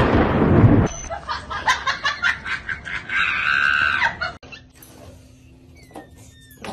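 A loud thunderclap in heavy rain, dying away about a second in, followed by a person yelling and screaming for a few seconds. The sound then drops to faint indoor noises.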